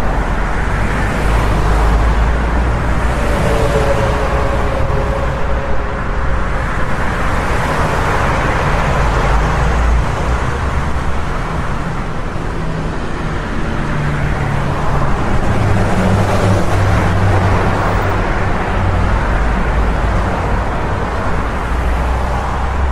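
Busy highway traffic: a continuous, steady wash of engine and tyre noise from many vehicles, with a low rumble underneath and slow swells as traffic passes.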